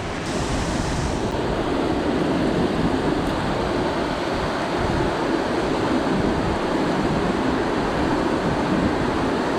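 Steady rushing of flowing river water, an even noise without distinct events.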